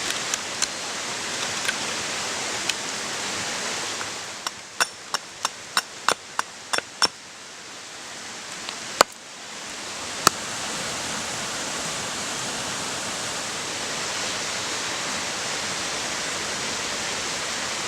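Steady rushing of running water, with a quick run of about ten sharp knocks a few seconds in and two louder single knocks a little later: wood being struck during spoon carving.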